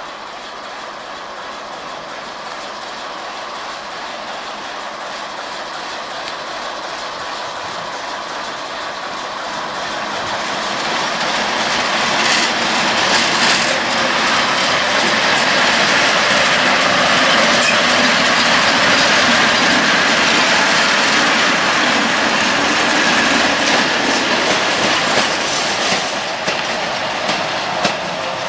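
Class 771 diesel locomotive and class 140 electric locomotive, coupled together, rolling past on the rails. The running noise grows steadily louder as they approach and is loudest as they pass. Two clusters of wheel clicks over the rail joints come about twelve seconds in and again near the end.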